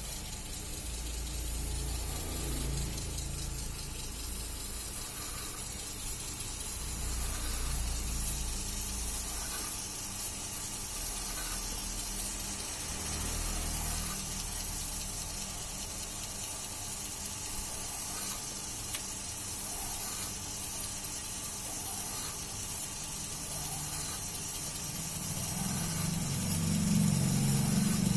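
Electric multipurpose vegetable slicing machine running steadily while slicing bitter melon, its motor humming under a hiss, louder near the end.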